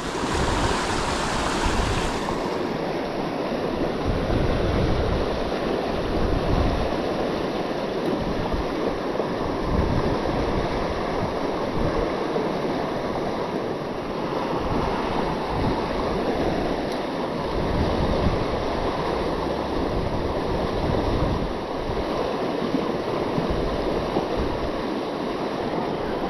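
Fast river water rushing and splashing over rocks in a riffle, a steady noise, with gusts of wind buffeting the microphone.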